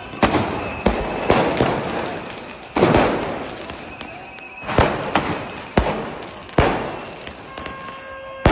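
Fireworks and firecrackers exploding in a rapid, irregular series of about nine sharp bangs, each followed by a short echoing tail.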